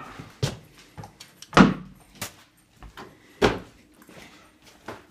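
An interior house door being pushed and knocked, a handful of separate knocks and thumps with the loudest about a second and a half in and again about three and a half seconds in.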